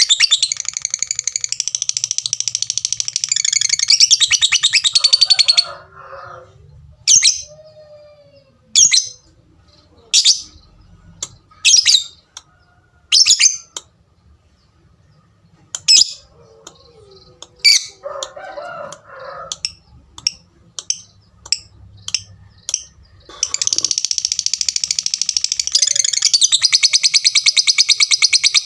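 Lovebird's long rapid chattering trill ('ngekek'), breaking off into a slow series of single sharp 'tik' chirps spaced a second or two apart, then launching back into a long continuous trill near the end.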